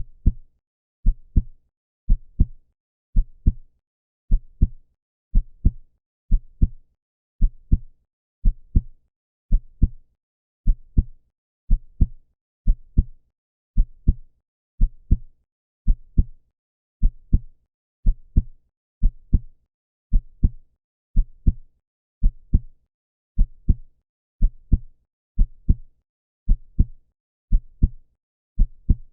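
Human heartbeat: a steady lub-dub, two low thumps close together, repeating at a slow even pace of about one beat a second.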